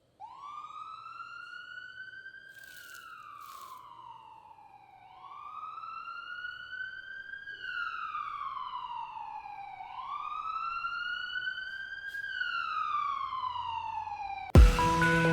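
A wailing siren that slowly rises and falls in pitch, about three slow cycles. Electronic music cuts in near the end.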